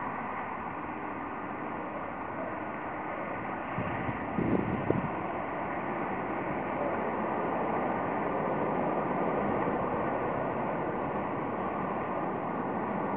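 Steady outdoor background noise, a hiss that grows slightly louder, with a faint steady hum. A brief faint voice comes in about four and a half seconds in.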